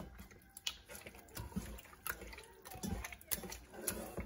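Wet squelching and smacking of raw chicken pieces being worked by hand in tomato paste and seasoning inside an aluminium pot, in irregular short bursts.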